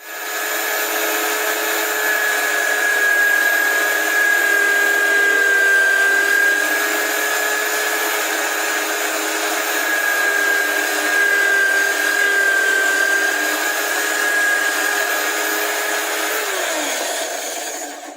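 Electric power tool motor running at a steady speed with a whine, then dropping in pitch near the end as it winds down.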